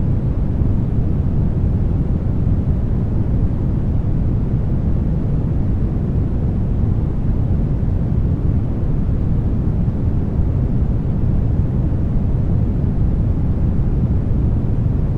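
Steady brown noise: an even, deep rumbling hiss that does not change.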